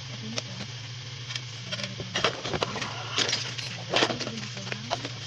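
Small hard items and plastic packaging being handled and set down, giving a run of clinks, rattles and sharp clicks that is busiest from about two seconds in until near the end.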